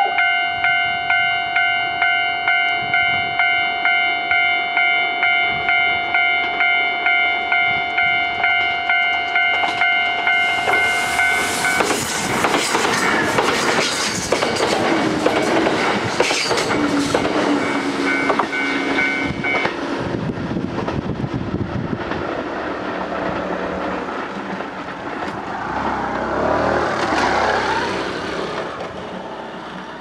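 Japanese level-crossing alarm ringing in an even, repeating electronic ding, about two strikes a second. From about ten seconds in, a Kintetsu express of 9000-series and 2610-series electric cars runs over the crossing with loud wheel rumble and clickety-clack over the rail joints, burying the alarm, which stops around twenty seconds in. The train noise swells once more near the end, then fades.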